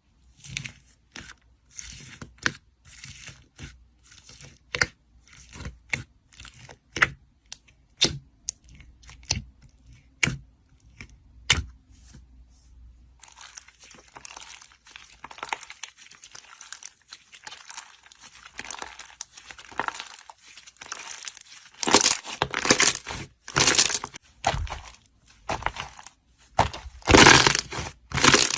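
Slime being handled close up: a string of sharp pops and clicks, then about halfway through a change to steady crackling and crinkling with louder bursts near the end.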